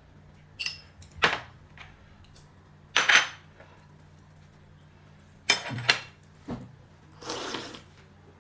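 Tableware handled at a meal: several separate short clinks and knocks of dishes and cutlery, spaced a second or more apart, with a longer half-second noisy sound near the end.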